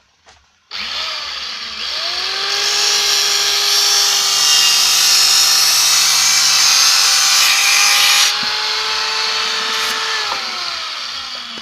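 Angle grinder spinning up, cutting sheet-metal car body panel with a loud hissing grind for several seconds, then easing off the metal and winding down near the end.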